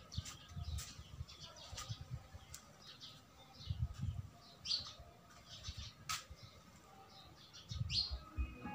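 Faint birds chirping a few times in a quiet lull, with a sharp click about six seconds in and scattered low bumps.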